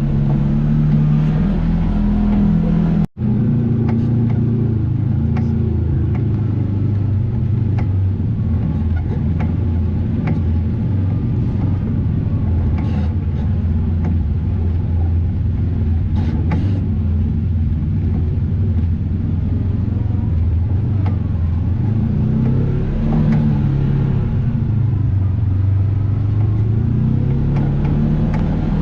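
Vehicle engine running while driving, its pitch rising and falling with the throttle. The sound cuts out for an instant about three seconds in.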